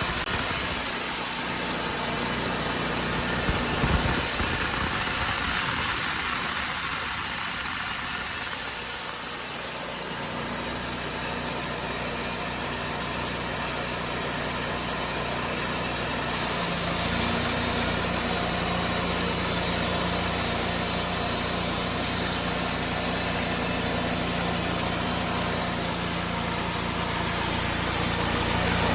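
An engine running steadily, its note shifting slightly and growing fuller about two thirds of the way through.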